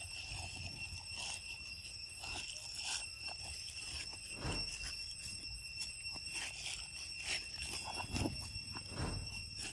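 Steady, high-pitched insect drone of forest crickets or cicadas, with scattered light clicks and rustles throughout.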